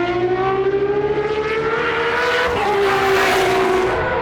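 Time attack race car under hard acceleration, its engine note climbing steadily, then dropping sharply about two and a half seconds in as it shifts up, and running on at the lower pitch. A rush of noise swells as it passes closest, in the middle of the sound.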